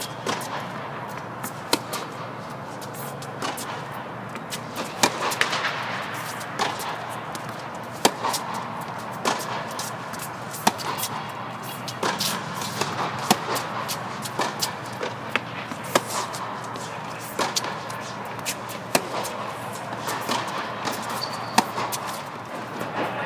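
Tennis balls struck by racquets and bouncing on an indoor hard court during a baseline rally: sharp pops and thuds at irregular intervals, about one every second or so, in a tennis dome.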